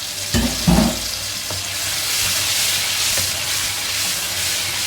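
Shrimp paste sizzling in hot oil in a pan, with a steady frying hiss. Two low knocks, the loudest sounds, come about half a second in, likely from a spatula or spoon against the pan as it is stirred.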